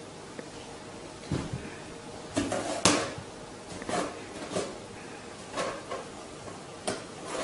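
A series of irregular soft thumps and taps, about eight in all, as a cat jumps down onto a bed and bats at a rubber balloon.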